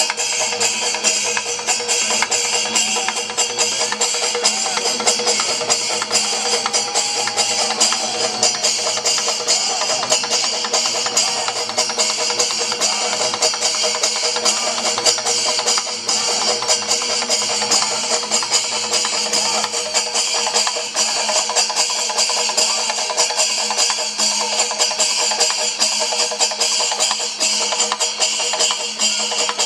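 Kerala chenda melam: a temple percussion ensemble of chenda drums and elathalam hand cymbals playing a dense, fast, unbroken rhythm.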